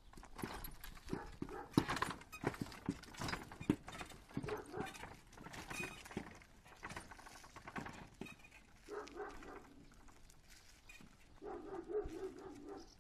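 Horse's hooves clip-clopping on a paved road as it pulls a wooden cart, a run of quick knocks. A low drone comes in twice in the last few seconds.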